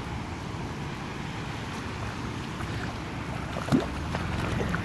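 Steady low rushing noise of wind buffeting the microphone over shallow floodwater flowing across a lawn.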